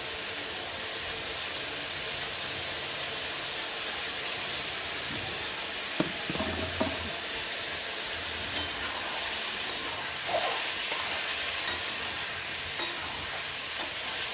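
Chicken pieces sizzling as they fry in oil in a pan, a steady hiss. In the second half a spatula stirring them clicks against the pan about once a second.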